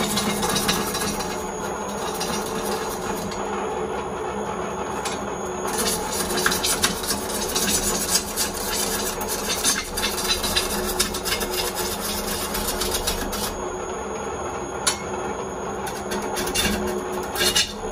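A wood lathe spins a large 18-inch white birch bowl blank with a steady hum while a long-handled bowl gouge roughs out the outside. The cutting noise is a scraping hiss with sharp ticks that comes and goes as the tool bites into the wood.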